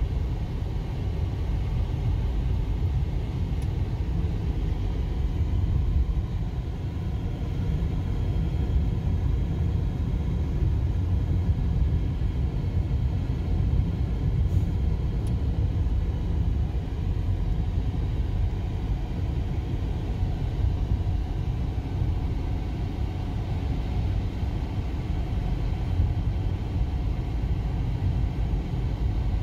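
Steady low rumble of a moving car, heard from inside the cabin: tyre, road and engine noise.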